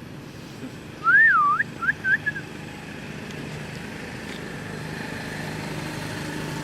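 A clear whistle warbles up and down about a second in, followed by three short chirps. After that a steady motor vehicle engine hum slowly grows louder.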